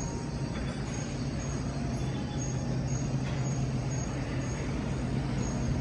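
Steady low mechanical hum with an even wash of background noise.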